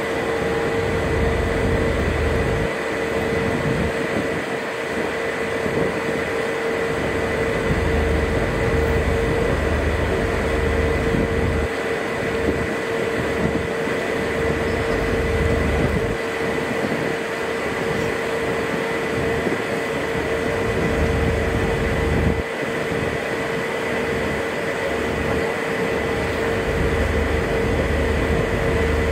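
Ship's engine running steadily under way: a constant hum with a steady mid-pitched whine, over a low rumble that swells and fades.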